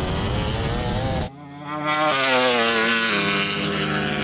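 High-revving racing engines at full throttle in a standing-start drag race: a steady, high-pitched engine whine. About a second in it cuts off, and after a brief lull another engine note comes in and slowly falls in pitch.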